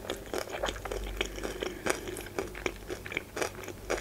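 Close-miked chewing of a mouthful of sushi roll, many short clicking mouth sounds in quick, uneven succession.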